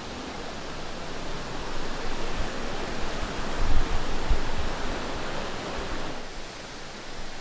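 A rocky mountain river rushing over stones at the bottom of a gorge, a steady hiss of water that swells in the middle and eases off near the end.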